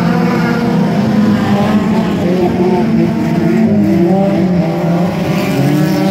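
Several dirt-track race cars' engines running around the oval at once, loud and steady, their pitch rising and falling as they accelerate through the turns and pass the fence.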